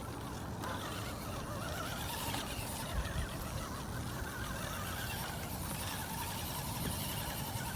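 Axial SCX10 RC rock crawler's electric motor and gears running at crawling speed, a faint whine rising and falling with the throttle as it works over rocks, with one short click about three seconds in.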